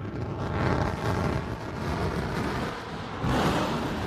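New Shepard booster's BE-3 rocket engine firing during the landing burn: a dense, rough engine noise that swells louder and brighter a little over three seconds in.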